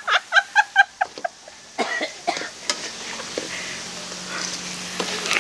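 Hearty laughter: a quick run of short 'ha-ha' bursts in the first second, then a few scattered softer laughs and breaths.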